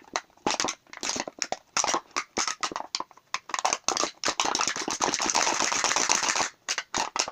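Thin aluminium drink can being twisted and worked by hand after being folded, the metal giving a quick run of irregular sharp clicks and pops that thicken into a dense crackle for about two seconds past the middle, then a few last clicks.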